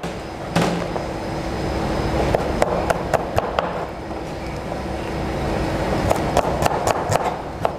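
Chef's knife slicing shallots thinly on a plastic cutting board: irregular sharp taps of the blade striking the board, over a steady rushing background noise.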